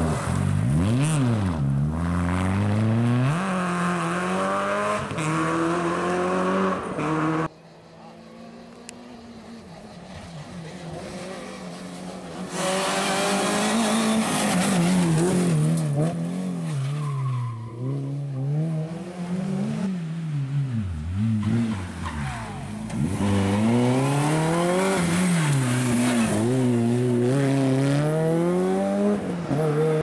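Renault Clio RS N3 rally cars' naturally aspirated four-cylinder engines revving hard, with repeated throttle lifts and gear changes as they drive past. The sound cuts off suddenly about seven and a half seconds in. Then another car is heard approaching from far off, growing loud by about twelve seconds, and keeps revving up and down through the gears.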